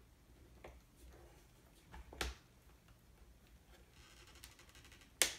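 Small metal clicks and taps of a hand tool prying a C-clip off a suspension hinge pin on an RC truck, with a short rattle about four seconds in and one sharp click near the end, the loudest of them.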